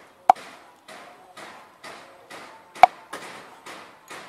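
Meat cleaver scraping the scales off a fish on a chopping board in short, regular strokes, about two a second. Two sharp knocks of the cleaver, the loudest sounds, come about a third of a second in and just before three seconds in.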